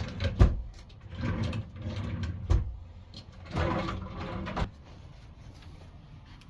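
Cabin drawers sliding open and shut, with three sharp knocks as they close, then quiet room tone.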